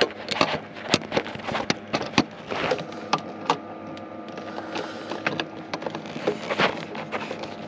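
Irregular clicks, knocks and scrapes of a hand screwdriver and stiff cables being handled at a battery charger's screw terminal block.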